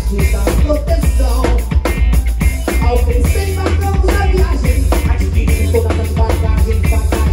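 A live band playing, with a Waldman Turbo 2.0 electric bass loud and steady in the low end over a drum kit beat.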